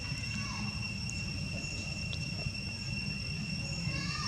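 Outdoor ambience: a steady high-pitched drone of insects over a low rumble, with a few faint short calls.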